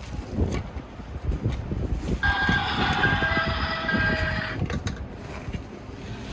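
A battery-powered toy vehicle plays a recorded electronic sound effect, a tinny clip with steady tones that starts about two seconds in and lasts a little over two seconds. Low rumbling handling noise runs underneath.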